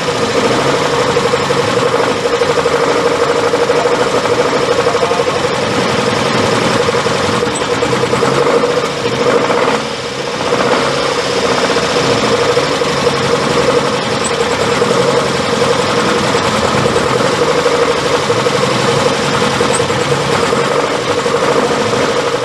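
Baistrocchi-prepared 1.5-litre flat-four boxer engine of an Alfa Romeo 33 Quadrifoglio Verde Group A race car running steadily during its pre-race warm-up, sagging briefly about halfway through before picking up again.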